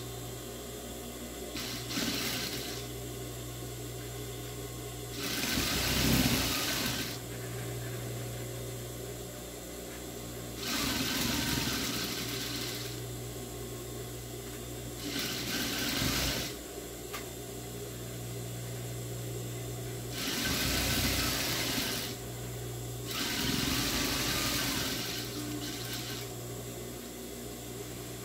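Siruba industrial sewing machine stitching a seam in five short runs of one to two seconds each, with its motor humming steadily in the pauses while the fabric is repositioned.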